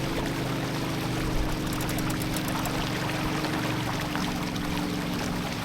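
Water rushing and splashing steadily along the hull of a sailboat running under spinnaker, with a low steady hum underneath.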